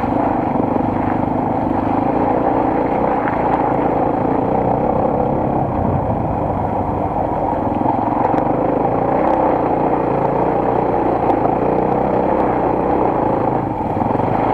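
Single-cylinder enduro motorcycle engine running steadily under way, its pitch wavering slightly with the throttle.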